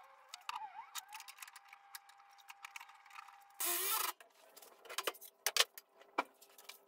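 A Ryobi cordless drill runs in one short burst about halfway through, followed by scattered light clicks and knocks of tools and metal being handled.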